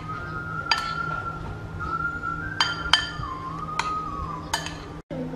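Metal spoon clinking sharply against a ceramic bowl about five times while stirring cooked rice, each clink ringing briefly. Light background music with a thin wavering melody underneath.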